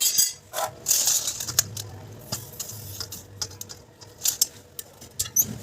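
Irregular light clicks and taps, like small hard objects being handled, over a faint steady low hum.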